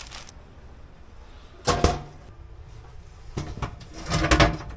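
Metal clanks and rattles of a new oven bake element and the oven's sheet-metal parts being handled during installation, in three short clusters with brief ringing, the last one the loudest.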